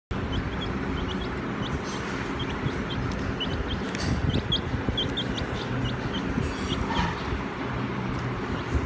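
Baby chicks peeping: many short, high chirps, each falling in pitch, several a second, over steady background noise.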